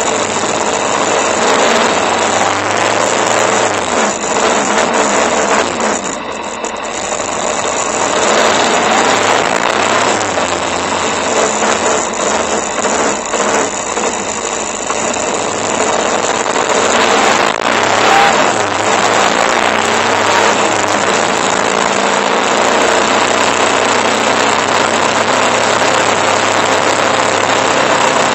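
Motorcycle engine running while the bike is ridden, mixed with wind noise rushing over the bike-mounted microphone.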